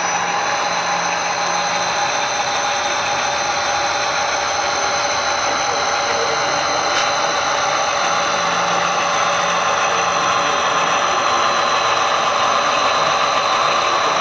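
Model railroad diesel locomotive running past with the steady sound of a diesel engine and a high, steady whine, as its train of passenger cars rolls by on the track.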